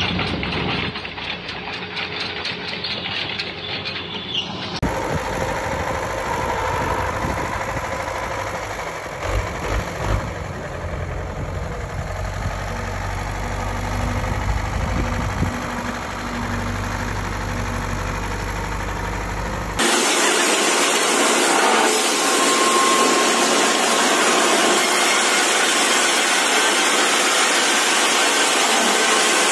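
Engines of a crawler bulldozer and a loaded log truck running. About five seconds in, this gives way to a farm tractor's engine running steadily. Some twenty seconds in, that changes to the louder, even noise of sawmill machinery with a steady whine.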